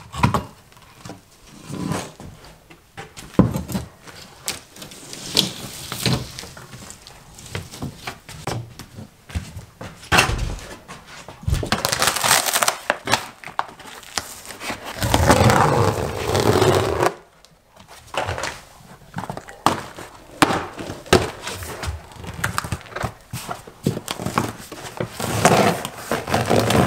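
Old vinyl sheet flooring being pried up with a hand tool and torn and peeled back by hand: irregular crackling, tearing and scraping. Louder stretches come about halfway through.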